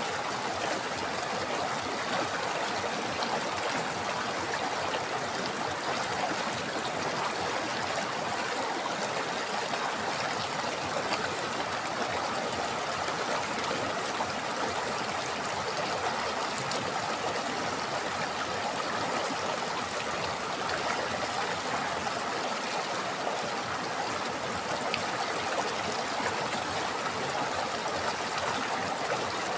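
A river flowing over rocks: a steady, even rush of water with a bubbling, trickling texture and no change over time.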